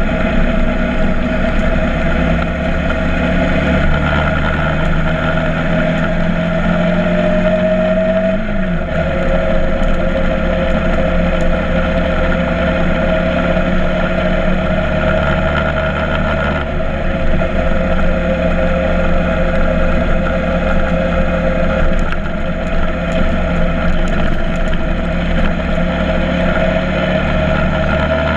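Motorcycle engine running steadily under way, with a short drop in engine pitch about eight seconds in.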